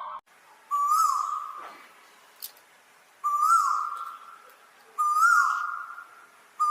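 A bird calling: a short whistled note that rises slightly and then falls away, given four times about two seconds apart.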